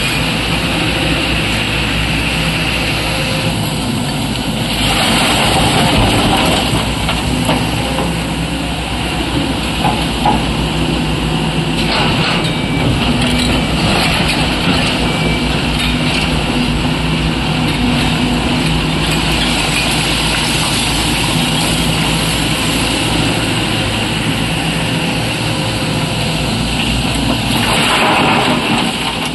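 SANY SY225 hydraulic excavator's diesel engine running steadily under load, with rock scraping and clattering as it works. Near the end a bucketful of rock pours into a dump truck, a louder rush of clatter.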